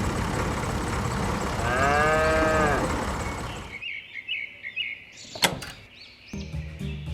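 A cow mooing once, an arched call heard over a steady rushing noise. The noise stops at about 4 s, giving way to quieter short high chirps like birds and a single sharp click. Low steady notes begin near the end.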